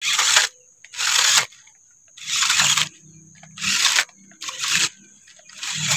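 Radio-controlled off-road crawler truck driving in short spurts over loose dirt and twigs: about six half-second spells of crunching, scraping tyre noise with quiet gaps between them.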